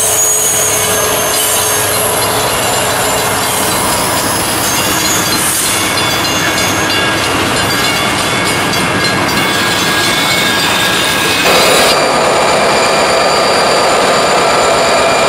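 Freight train of autorack cars rolling past on a curve, steel wheels squealing and clacking over the rail. About eleven seconds in it cuts to diesel locomotives running as they move past.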